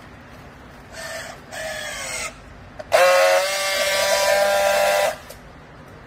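Handheld electric strapping tool working on yellow plastic strap. Two short motor whines that sag in pitch as it tensions the strap, then a click and a loud steady buzz for about two seconds as it friction-welds the strap ends, cutting off sharply.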